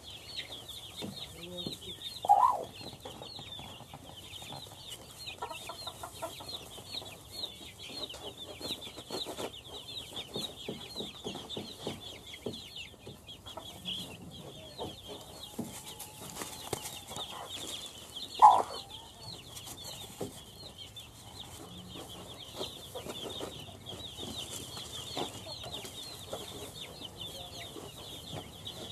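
Chicks peeping continuously in a high, rapid stream, with a hen clucking now and then; two louder hen calls stand out about two seconds in and again about eighteen seconds in.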